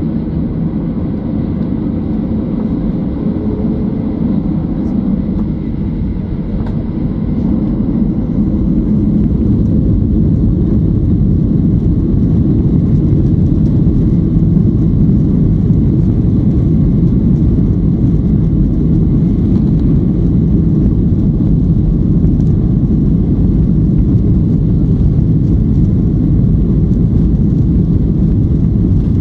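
Cabin noise of a Boeing 737-800 heard from a window seat over the wing: the steady rumble of its CFM56 turbofan engines. It grows louder about eight seconds in, then holds steady.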